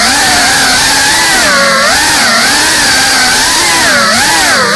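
A GEPRC Cinelog 35 cinewhoop FPV drone's brushless motors and propellers whining. The pitch keeps rising and falling as the throttle changes during quick manoeuvres.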